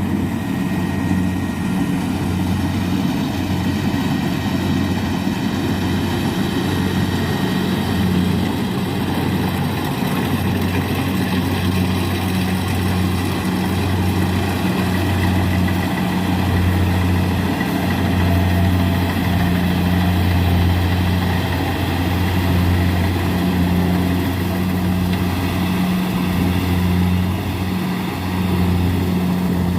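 Engine of a Kubota rice combine harvester running steadily, a low drone that holds one pitch with only slight swells in level.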